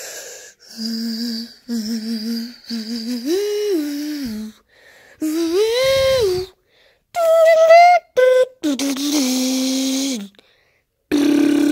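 A child's voice making humming, motor-like sound effects for a toy wheel starting up: a string of held notes with short gaps, the pitch stepping and gliding upward through the middle, then dropping back low near the end.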